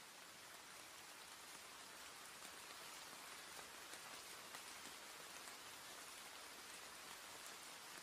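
Steady rain falling: a soft, even hiss with no humming or other sound over it.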